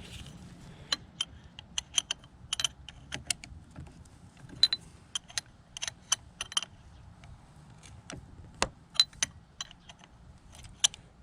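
Irregular sharp clicks from a SeaStar hydraulic steering cylinder's seal cap being screwed back on by hand, with its tools and parts handled.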